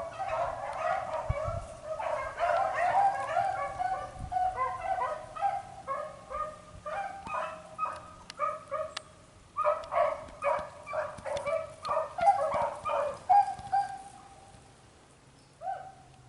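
A pack of beagles baying on a rabbit's trail. Many overlapping barks at first, then more separate barks at roughly two a second, with one longer drawn-out bawl near the end before the calls fade.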